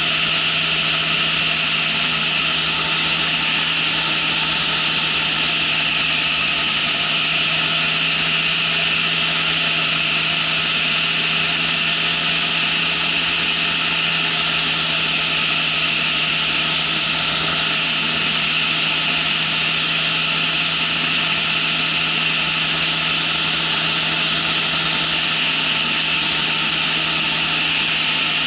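Ultralight trike's engine and propeller running at a steady cruise in flight: a constant drone with a loud hiss of rushing air over it, unchanging throughout.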